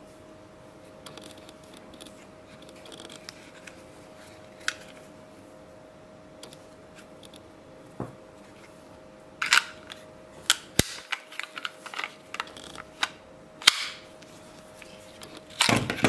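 Handling sounds of a fixed-blade knife and its hard sheath: a few faint ticks, then a cluster of sharp clicks and taps in the second half, and a short scrape near the end as the knife is laid into its box.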